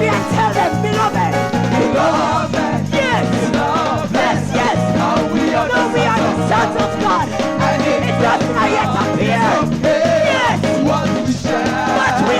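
Live gospel church band playing an upbeat instrumental passage, with a steady driving beat in the bass and drums and melodic runs over it.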